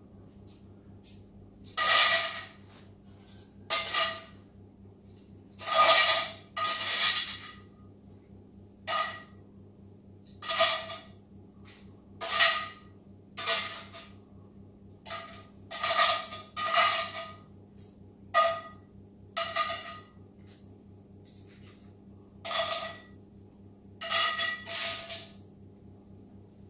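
Metal tongs scraping and clinking against a frying pan in short, irregular strokes, each with a brief metallic ring, as snow peas are lifted out of the pan.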